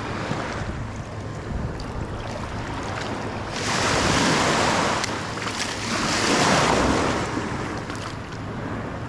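Small waves breaking and washing up the sand at the shoreline, with two louder surges about three and a half and six seconds in, and wind buffeting the microphone.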